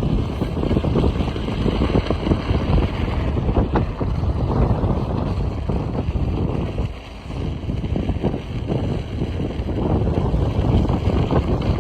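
Wind buffeting the microphone at riding speed: a steady, fluttering, rumbling rush that eases briefly about seven seconds in.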